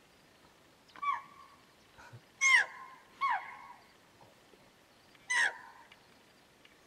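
Axis deer (chital) barking: four short, high-pitched barks, each dropping sharply in pitch, the second the loudest, with the last coming after a longer pause.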